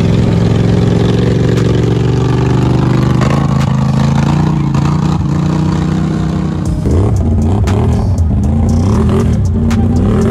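Quad ATV engines running through mud, holding a steady pitch at first and then easing lower. From about seven seconds in the engine pitch rises and falls with the throttle, mixed with sharp clattering knocks.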